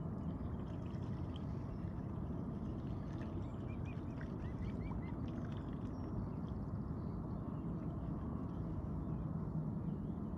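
A steady low rumble, with mute swans and their cygnets dabbling and feeding at the water's surface. A few faint high peeps from the cygnets come about three to five seconds in.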